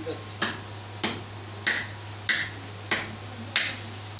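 Sharp, crisp strikes repeating in a steady rhythm, about one every 0.6 seconds, over a low steady hum.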